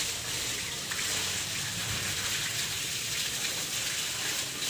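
Steady gush of water from a garden hose, the jet spraying onto a wet German Shepherd and splashing on the tiled floor.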